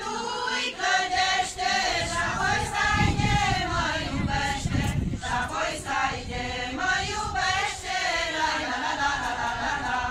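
A group of women singing a Romanian folk song together, unaccompanied. A low rumble runs underneath for a couple of seconds near the middle.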